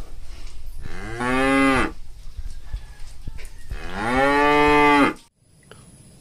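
A bovine mooing twice: two long, low calls about three seconds apart, the second one longer.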